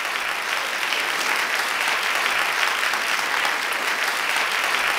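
Steady applause: a dense, even clapping of many hands with no single claps standing out.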